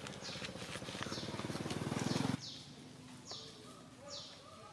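Birds calling outdoors, one repeating a high, downward-sweeping call about once a second, with lower chirps in the second half. Under them, a low, fast-pulsing motor sound grows louder and cuts off abruptly about two and a half seconds in.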